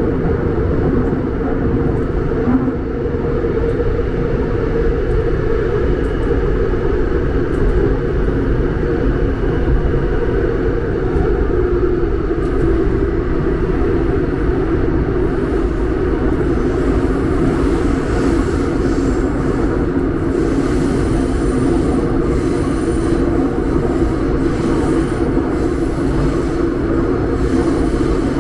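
Seoul Subway Line 5 train running on the rails, a steady, continuous rumble.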